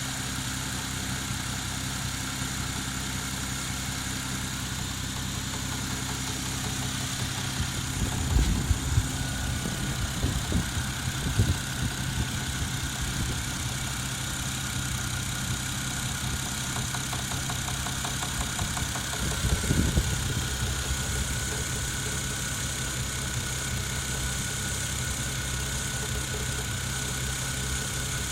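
Toyota 1JZ-GTE turbocharged straight-six running at idle with a knock that the owner takes for a fault in the engine. It gets louder in short surges a few times, about eight, eleven and twenty seconds in.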